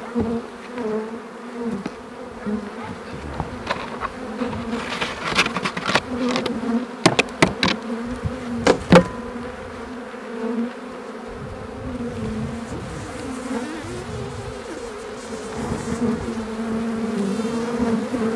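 Honeybees buzzing around the hive, a steady hum throughout. A run of sharp clicks and knocks breaks in from about four to nine seconds in.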